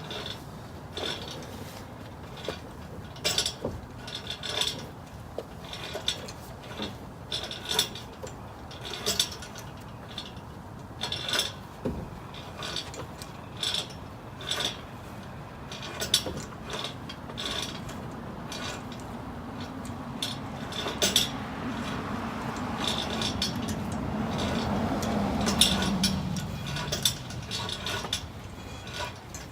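Ratchet wrench clicking in short irregular bursts, with metal tool clinks, as fasteners are worked loose. About twenty seconds in, a steadier hum builds for several seconds, peaks and then fades.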